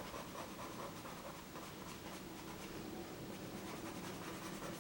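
Stabilo CarboThello pastel pencil scratching in short strokes on vellum-surface mixed media paper as colour is shaded in, over a faint steady hum.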